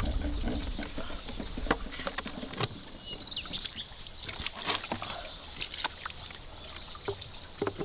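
Water trickling from a hose pipe into a basin and sloshing as a plastic bottle is filled and dipped into the tub, with light knocks and clicks of the bottle. The flow is weak: the drought has left the water barely coming out.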